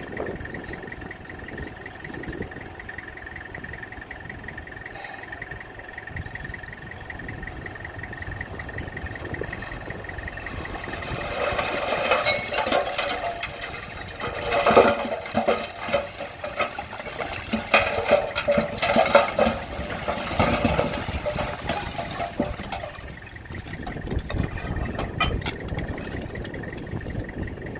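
Bulldozer's diesel engine running with a steady low rumble. Midway, for about ten seconds, it gets louder with dense grinding and clattering, as of rock being pushed and the tracks working.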